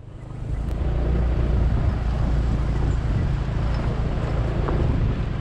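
Vehicle engine running steadily while moving, with wind noise on the microphone; it fades in over the first second.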